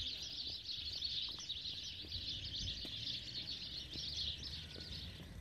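A flock of sparrows chirping continuously, many short overlapping chirps blending into one busy chatter over a faint low background rumble.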